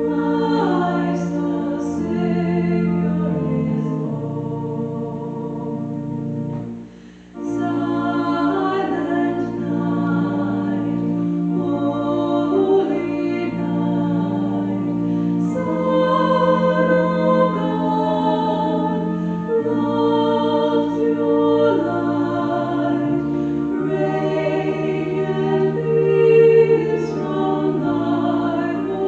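A choir singing a hymn with organ accompaniment, with a brief pause about seven seconds in.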